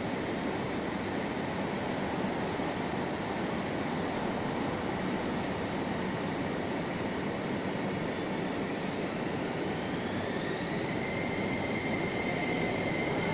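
8-car Ma On Shan Line electric multiple-unit train moving along the platform: a steady rushing rumble, joined about two-thirds of the way in by an electric motor whine that rises in pitch and then holds as a steady high tone near the end.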